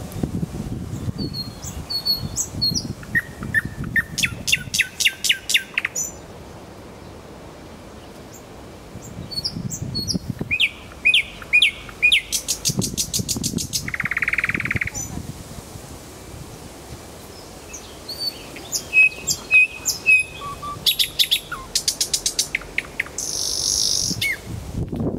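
Nightingale singing: three song phrases of rapid repeated notes, trills and whistles, separated by pauses of a few seconds.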